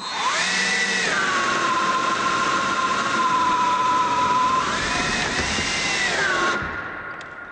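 Cordless power drill running at high speed, its motor whine dropping after the first second as it bogs down, rising again about five seconds in, then winding down about a second before the end.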